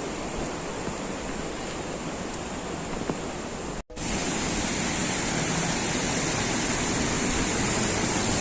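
Steady rushing of a waterfall. It cuts out for an instant just before halfway, then comes back a little louder.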